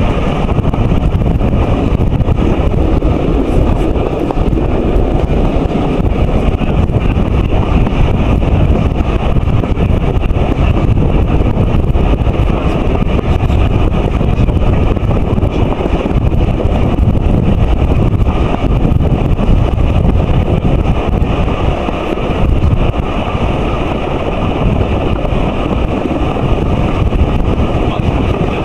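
Wind rushing over the microphone, held out of the window of a moving steam train, with the train's running noise underneath. The noise stays loud and steady throughout.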